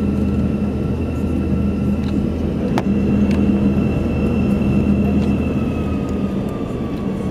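Cabin noise of an Airbus A321 airliner with its jet engines running: a steady low rumble and hum under two steady high whining tones, one of which sinks slightly in pitch in the last couple of seconds. A single sharp click comes about three seconds in.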